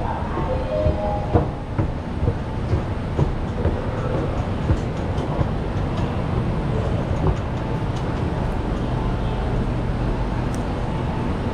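Metro train running on its track: a steady low rumble, with a few sharp clicks in the first two seconds.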